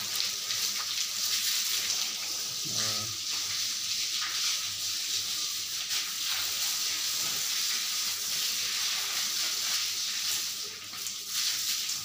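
Water spraying down onto water buffaloes and splashing on the wet concrete floor of the shed, a steady hiss: a shower to cool the animals.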